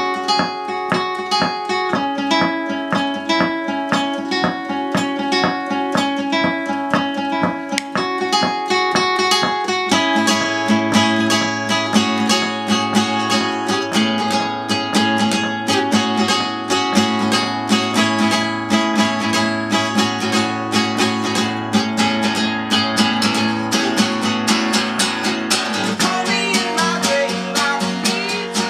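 Acoustic guitar played solo, picked notes and chords in a steady rhythm; about ten seconds in, lower bass notes join and the playing grows fuller.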